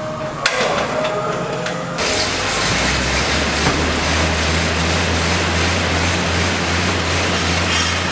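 Air bike being pedalled: its fan spins with a loud, steady rush of air over a low hum, starting abruptly about two seconds in after a few clicks.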